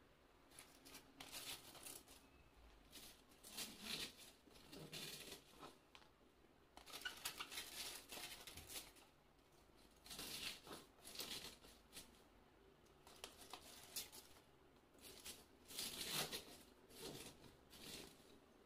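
Faint, irregular rustling, crinkling and light knocks of vegetables being handled and packed by hand into a large glass jar for mixed pickles, coming in bursts of a second or two with short pauses between.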